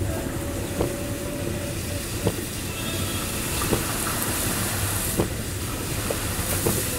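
Car driving through monsoon rain: a steady rumble of road and rain noise with a hiss on top, and a light knock about every second and a half.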